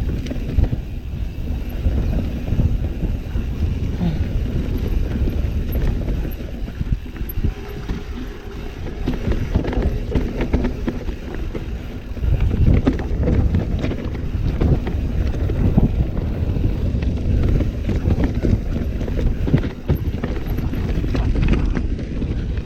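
Mountain bike ridden fast downhill on a dirt trail: wind rushing on the microphone over tyre noise, with constant irregular rattles and knocks from the bike over rough ground.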